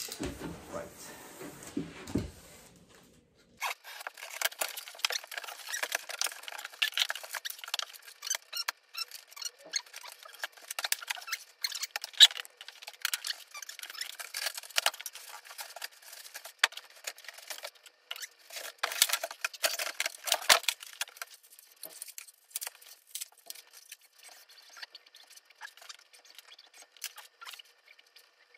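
Cardboard box and packing being handled as a 3D printer is unpacked: a dense run of rustling, scraping and crackling, with a few faint squeaks, that starts a few seconds in and thins out over the last third.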